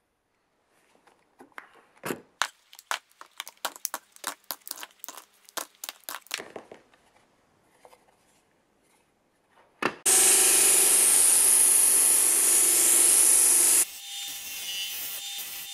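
Plastic spring clamps being unclipped and set down: a quick run of clicks and clacks for several seconds. Then a bench disc sander runs with a wooden workpiece pressed to the disc, a loud steady grinding for about four seconds. It drops suddenly to the quieter sound of the disc spinning free when the piece is lifted off.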